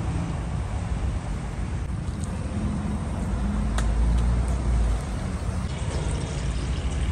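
Steady low rumble, a little stronger for a second or so near the middle, with a faint click about four seconds in.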